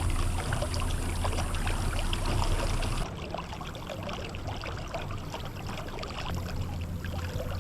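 Fishing kayak under way: water splashing and trickling along the hull over a steady low hum.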